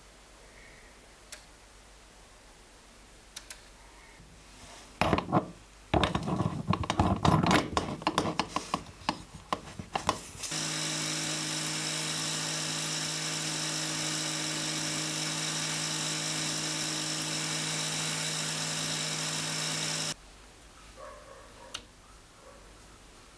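Sharp, irregular knocks and clatter of metal parts being handled on a wooden bench for about five seconds. Then an angle grinder with a sanding disc runs steadily, with a steady whine, for about ten seconds and stops abruptly.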